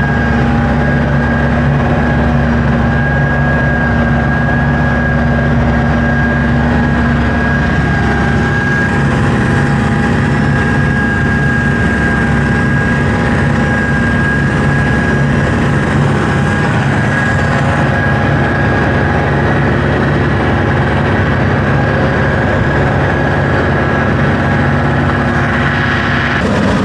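Kubota M9000 tractor's diesel engine running steadily under load while pulling a haybine through hay, a continuous drone with a low rumble that eases a little about eight seconds in.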